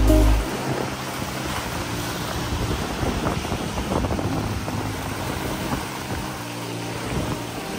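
Choppy sea surf washing and breaking over rocks and around wooden pier posts, a steady rushing wash, with wind on the microphone.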